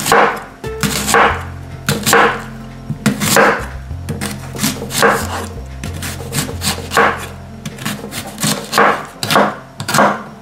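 Kitchen knife slicing a fennel bulb into thin slices on a wooden cutting board, each cut ending in a knock of the blade on the board, about one to two cuts a second.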